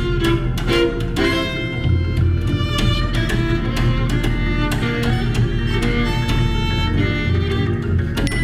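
Chamber ensemble playing contemporary music: bowed strings such as violin and cello with plucked notes, many short notes over sustained tones and a steady low bass.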